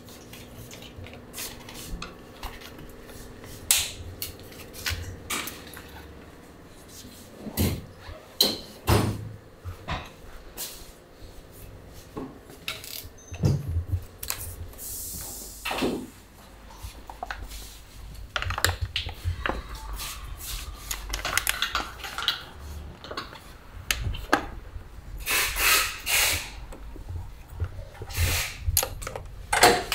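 Scattered clicks, taps and knocks of motorcycle parts and hand tools being handled during assembly, with a few short rubbing or rustling noises near the end.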